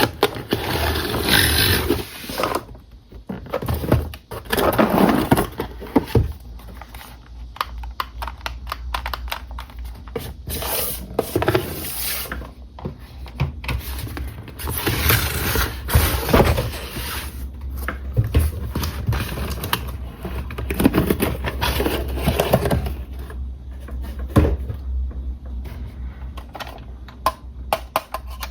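Hands unpacking and handling a plastic toy RC car and its packaging: irregular scraping and rustling with sharp clicks and knocks, over a steady low hum.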